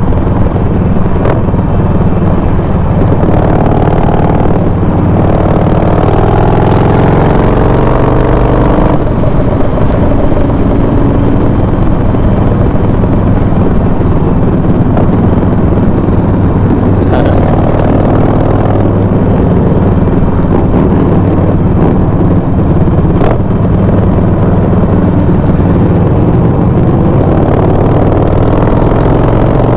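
Harley-Davidson V-twin motorcycle engine running under way in traffic, a steady low rumble with the note rising and falling a few times, along with road and wind noise.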